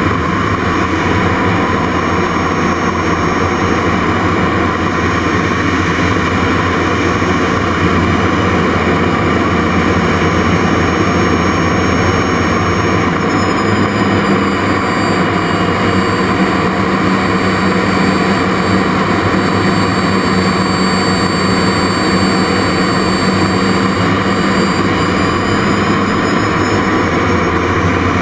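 Jet Provost Mk5's Viper turbojet running steadily, heard loud from inside the cockpit. About halfway through, a high whine splits into two pitches, one rising and one falling, which draw back together near the end.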